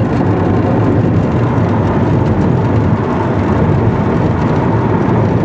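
Steady engine and tyre noise heard from inside a moving car, the tyres running on wet asphalt.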